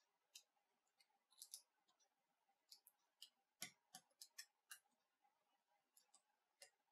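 Faint, scattered small clicks and snaps of a plastic prying tool working a Nokia Lumia 930 smartphone's logic board loose from its frame, coming most thickly about halfway through.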